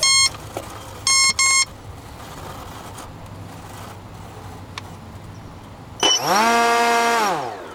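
Three short electronic beeps from the E-flite speed controller as it powers up, one then two close together. About six seconds in, the Park 480 brushless outrunner with its 8x8 propeller spins up quickly, runs with a steady whine for about a second, then on throttle cut winds down in a slowly falling whine: with the motor brake switched off the propeller coasts instead of stopping.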